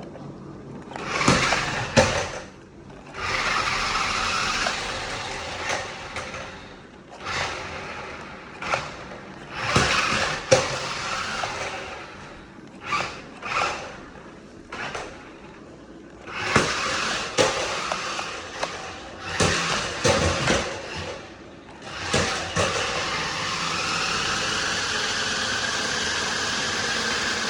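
Tyco Dagger remote-control dragster's electric motor whirring in repeated bursts as it is driven, stopping and starting, with its stunt shifter set to wheelie zone. There are a few sharp knocks, and a longer steady run near the end.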